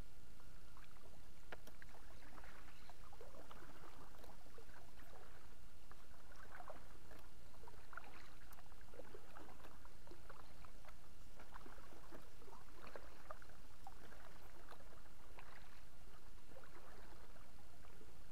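Kayak paddle strokes in calm water: the blades dipping and pulling through, with splashes and drips every second or two over a low steady rumble.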